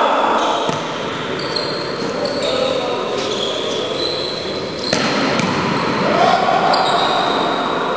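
Echoing sports-hall noise from an indoor volleyball game: the ball being struck, with a sharp hit about five seconds in, and players calling out.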